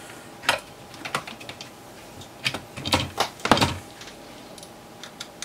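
Scattered clicks and knocks from hands handling an opened pulse generator's metal chassis on a workbench. The loudest knock comes about three and a half seconds in.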